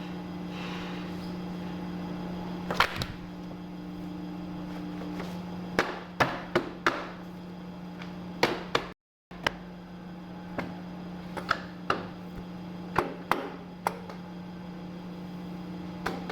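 Industrial paper guillotine cutter in a print shop, its motor humming steadily, with scattered sharp knocks and clacks from the machine at work.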